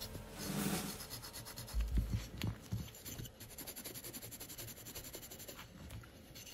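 A red abrasive scuff pad rubbing over the bare die-cast metal body of a small toy Jeep, a soft scratchy scuffing that preps the metal for primer. There are a few dull knocks about two seconds in.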